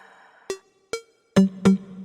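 Electronic background music with drum-machine beats; the beat drops out briefly about halfway through and comes back with a low bass note.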